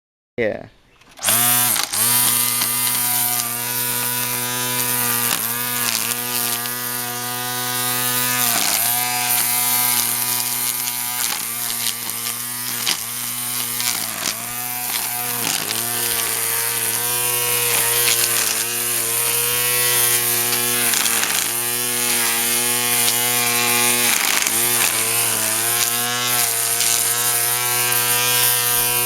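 Earthwise electric lawn mower's motor running as it cuts grass, a steady hum whose pitch sags briefly every second or two as the blade bogs down in thicker grass and then recovers.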